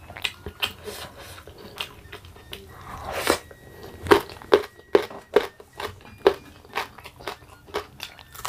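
Close-miked chewing of raw food, with irregular crunches and wet mouth clicks, and a louder noisy swell about three seconds in.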